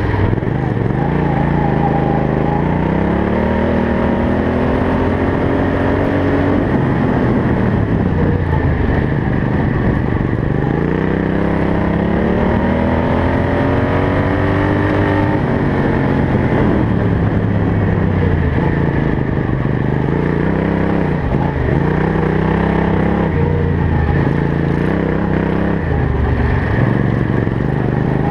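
Racing ride-on lawn mower's engine heard on board at race pace: it climbs steadily in pitch for several seconds, drops sharply about six seconds in, climbs again and drops about sixteen seconds in, then rises and falls in shorter, quicker swings every couple of seconds as it is backed off for the corners.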